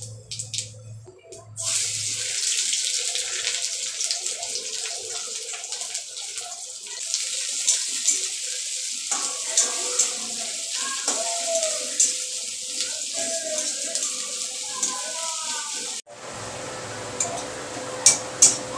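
Sliced onions sizzling as they fry in hot oil in a wok, a steady hiss. Near the end the hiss changes abruptly and a spatula clinks against the pan a few times.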